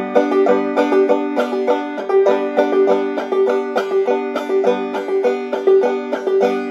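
Five-string banjo played clawhammer style on open strings in open G tuning: a steady, even 'brush, brush, thumb' rhythm. A fingernail brushes down across the strings twice, then the thumb plucks the high G drone string, and the open G chord rings on throughout.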